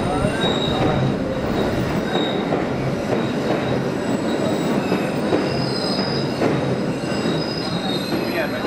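Boston Blue Line subway train at the platform, its steel wheels squealing in thin high tones over a loud steady rumble as it draws in and stops.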